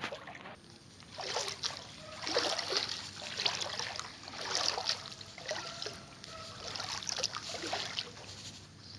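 Floodwater sloshing and splashing in irregular bursts.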